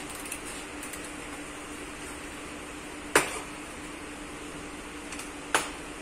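Two sharp knocks about two and a half seconds apart as the foam-wrapped folding e-bike is handled, over a steady hum.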